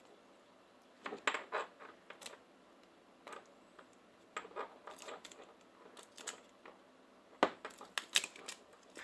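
Irregular light clicks and taps of small hard parts and tools on a smartphone being worked on during a battery replacement, with a cluster of sharper clicks near the end.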